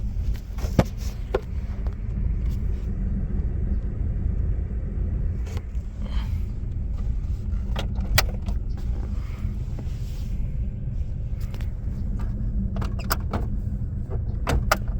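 Plastic glove box door and its repaired latch clicking and knocking a dozen or so times as it is opened, shut and latched, over a steady low rumble.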